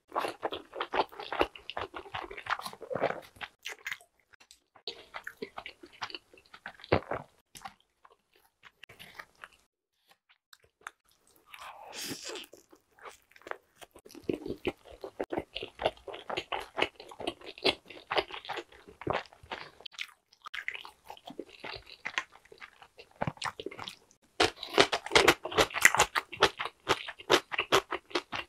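Close-miked chewing and crunching of pepperoni pan pizza with a crispy crust, in bursts broken by short pauses, the longest pause nearly halfway through and the loudest crunching near the end.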